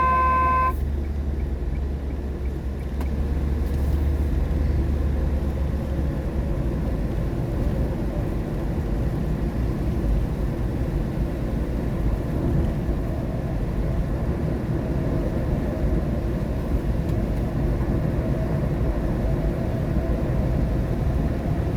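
Steady road and tyre noise inside a car's cabin while driving in the rain, with a low rumble that eases off about six seconds in. A short electronic chime from the navigation unit sounds at the very start.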